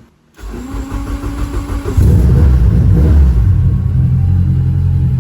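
Honda Del Sol's four-cylinder engine being cranked for about a second and a half, then catching about two seconds in and running loud and low-pitched without a backfire.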